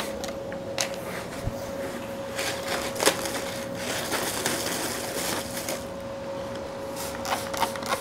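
Thin plastic bag crinkling and rustling as flatbread is pulled out of it and handled, a run of small crackles with a sharper crackle about three seconds in. A steady tone runs underneath.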